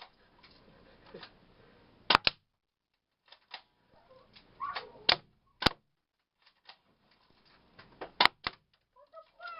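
Airsoft guns firing single shots at a cardboard-and-plastic target: about six sharp cracks, some in quick pairs, with lighter ticks between.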